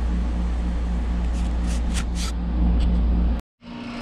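Steady low machine hum with a tone that pulses about four times a second. A few brief scrapes or clicks come past the middle, and the sound cuts off abruptly near the end.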